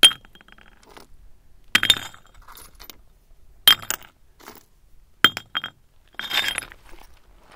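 Chunks of glassy copper-smelting slag clinking against each other with a bright ring. There are sharp clinks every second or two, a quick double clink about two-thirds of the way through, and a longer crunching scrape near the end.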